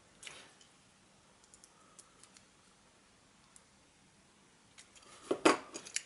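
Light scattered clicks and taps of a small plastic compressor start relay and multimeter test probes being handled, with a louder clatter of clicks about five and a half seconds in.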